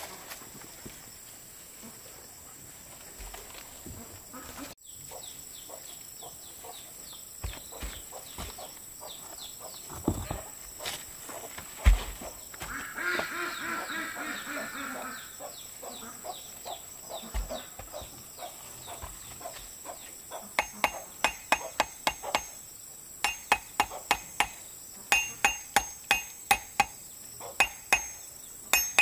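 Scattered knocks of building work with a heavy thump about twelve seconds in and a farm bird calling soon after, then from about twenty seconds in quick runs of hammer blows, about three a second, each with a metallic ring.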